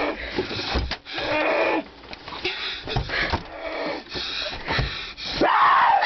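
Harsh, ragged breathing and gasping close to the microphone in uneven bursts, with a few dull knocks of scuffling. A rising cry comes near the end.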